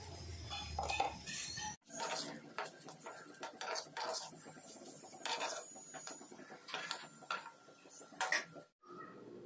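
Metal spatula scraping and clinking against a black kadai while stirring and turning fried rice, in irregular strokes. The sound breaks off abruptly twice, about two seconds in and near the end.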